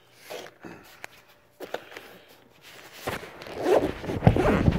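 A zippered fabric camera case being handled and unzipped: a few soft clicks, then from about three seconds in a louder stretch of rustling and scraping as the zipper is pulled open.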